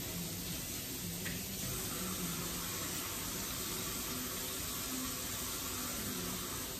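Kitchen faucet running steadily into a stainless steel sink.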